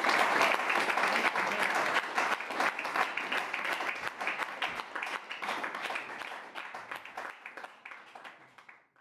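Audience applauding, a dense patter of many hands clapping that gradually fades away to silence toward the end.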